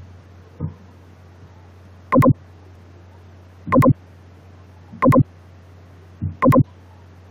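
Steady low electrical hum with four short, loud buzzy pops, about a second and a half apart.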